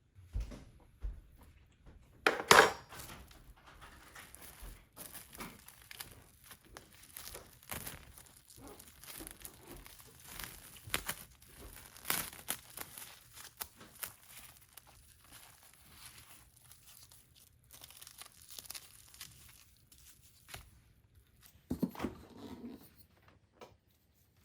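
Plastic crinkling and rustling as it is handled by hand, with irregular small crackles and a louder knock about two seconds in and again near the end.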